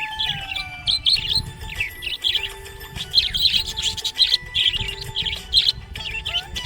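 Budgerigars chirping busily, a steady stream of quick high chirps and twitters.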